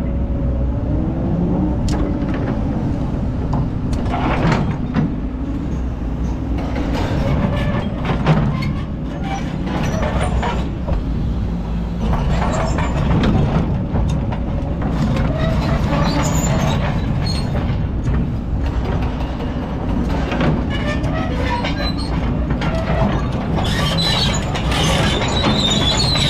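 Kobelco hydraulic excavator's diesel engine running steadily under load, heard from the operator's cab, while its steel bucket scrapes through hard-packed black sand and rock, with scattered knocks, the loudest about eight seconds in.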